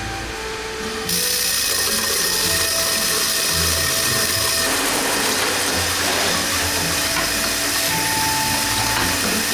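Oil filter production-line machinery running with a loud, steady mechanical noise, which jumps up abruptly about a second in.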